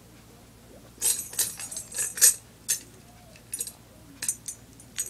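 Jingling and clinking in quick shaken clusters, like a small rattle or bells being shaken: a longer run of shakes about a second in, then three short shakes near the end.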